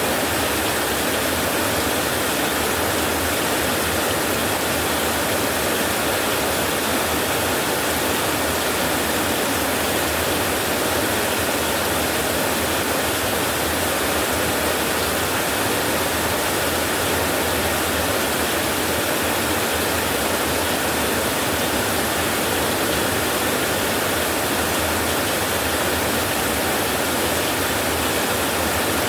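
Steady heavy rain on a tin roof, an even unbroken hiss with no thunder claps.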